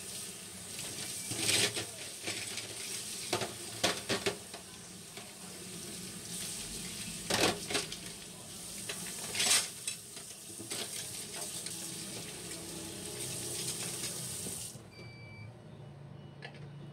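Kitchen tap running into a stainless steel sink while dishes and chopsticks are rinsed under the stream, with several sharp clatters of utensils and dishes knocking together. The water is shut off about 15 seconds in.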